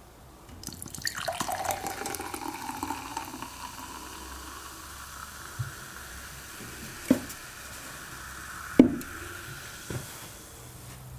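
Carbonated cider poured from an aluminium can into a tall glass, starting about a second in, with a fizzing splash that eases off as the glass fills. A few sharp knocks follow near the end; the loudest is the can being set down on the table.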